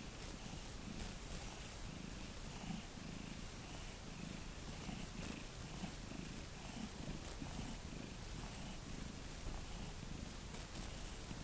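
Domestic cat purring steadily while its head is stroked, a low, pulsing purr.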